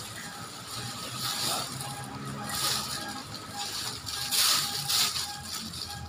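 Thin plastic carrier bag rustling and crinkling in several short bursts as a bunch of papaya leaves is pulled out of it, the leaves rustling against the plastic.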